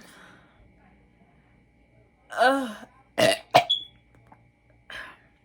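A woman's burp from drinking fizzy soda, one voiced burp that rises and falls in pitch about two and a half seconds in, followed by a couple of short sharp coughs clearing her throat and a smaller one near the end.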